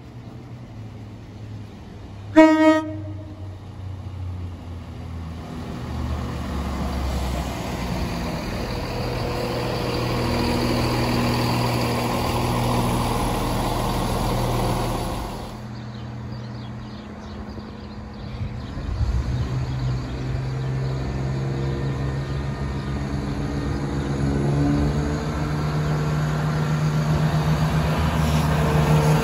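Diesel multiple unit passing through a station: one short horn toot about two seconds in, then its engine and wheels build into a steady, loud rumble as it runs past, cutting off sharply midway. A second diesel unit's engine is then heard approaching, growing gradually louder to the end.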